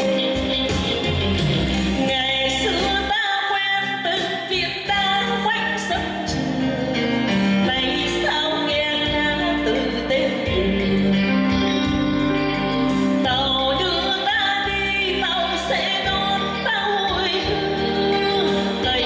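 A woman singing a Vietnamese ballad into a microphone, amplified live, backed by a band with keyboard and electric guitar.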